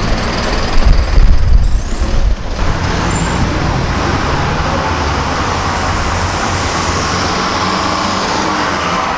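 Steady noise of busy road traffic passing close by. A heavy low rumble runs for the first couple of seconds and cuts off abruptly, leaving an even traffic hiss.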